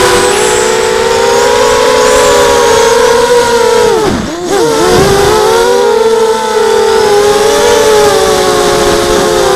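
Mini quadcopter's brushless motors (Tiger MN1806 2300kv) spinning Gemfan 5030 two-blade props, a steady buzzing whine heard from the camera on the frame. About four seconds in, the throttle is chopped and the pitch falls steeply, then it climbs straight back as power comes on again.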